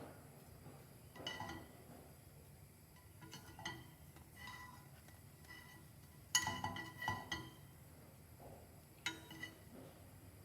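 Dishes and kitchen utensils clinking against each other, a series of short knocks that each ring briefly. The loudest cluster of clinks comes a little past the middle, with another near the end.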